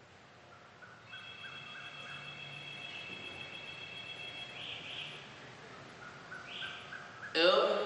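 Faint chirps and a steady high trill, then about seven seconds in a man's voice abruptly starts a loud chanted prayer recitation, the start of congregational prayer in a mosque.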